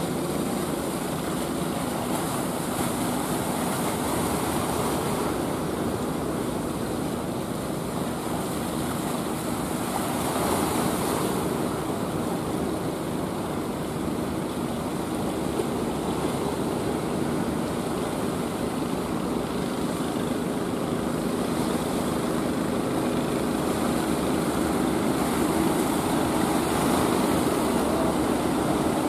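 Engines of wooden fishing boats running steadily, a low hum with a faint constant tone, over the wash of breaking surf.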